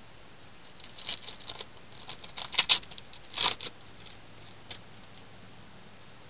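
Foil wrapper of a Topps Chrome baseball card pack crinkling and tearing open, a run of small crackles with two louder ones in the middle.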